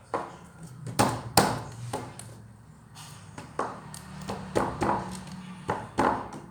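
Slime being squeezed and handled, giving a series of short, sharp pops and clicks at irregular intervals.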